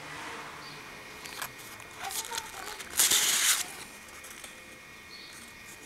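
Cardstock pages and recipe cards of a handmade recipe book rustling and sliding against each other as they are handled. There are a few short swishes, with the loudest, lasting about half a second, about three seconds in.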